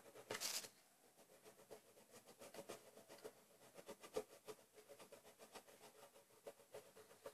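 Faint scratching of a pen on paper as it shades a drawing in short, irregular strokes, with a brief louder scratch about half a second in.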